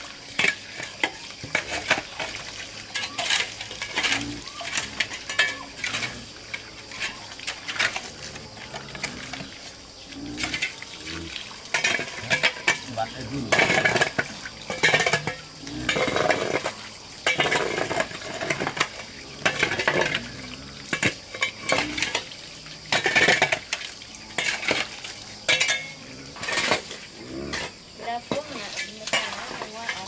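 Irregular clinks, knocks and scrapes of metal kitchenware, like a utensil stirring and striking a pot, over a steady high hiss.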